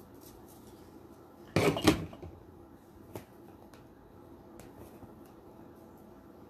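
A short, loud handling noise, two quick scraping strokes about a second and a half in, from working with red poly burlap mesh at a worktable, followed by a faint click and soft fabric handling.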